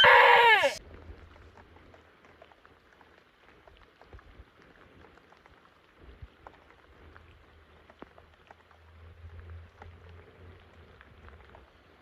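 A man's loud, drawn-out cry of frustration, rising then falling in pitch, cuts off about a second in, as his fishing line snaps on the cast. After it, faint rain patters with scattered light ticks.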